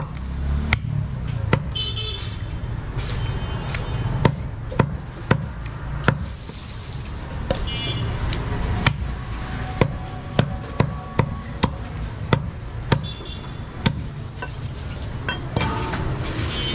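Heavy butcher's knife chopping goat meat on a wooden log chopping block: sharp knocks at irregular intervals, about one or two a second.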